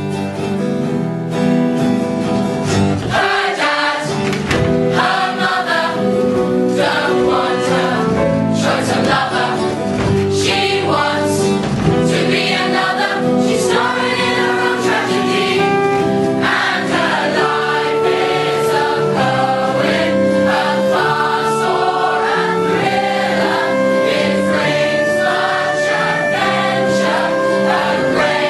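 A large chorus of teenage voices singing together in a musical-theatre ensemble number, with held notes moving from one pitch to the next.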